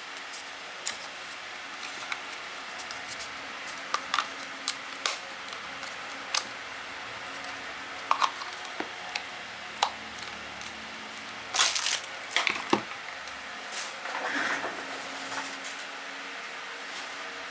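Scattered small clicks, taps and short rustles of objects being handled close to the microphone, with a brief flurry of handling noise about twelve seconds in, over a steady faint hiss.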